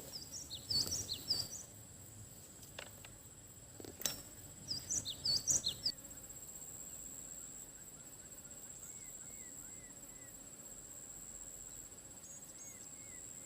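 Steady high-pitched insect drone with birds chirping: two quick runs of sharp chirps in the first six seconds, then fainter, softer calls later on. A couple of small clicks sound early on.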